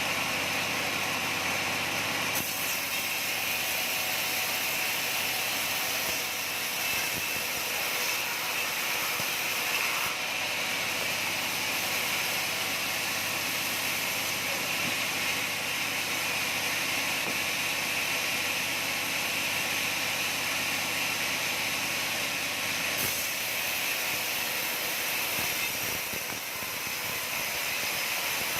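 Sawmill saw and its drive running steadily through a log, a continuous noisy whine with small shifts in tone a few times.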